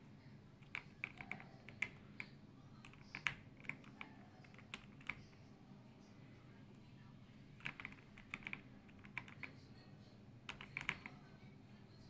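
AULA F98 Pro mechanical keyboard with transparent PC keycaps being typed on: sharp key clacks in short bursts of several keystrokes, with a pause of about two seconds midway.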